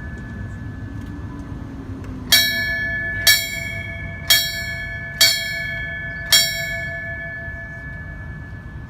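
Memorial bell struck five times, about a second apart, each strike ringing on over the last. These are five strikes of the fire service's traditional tolling, five times for three cycles, for firefighters who died in the line of duty.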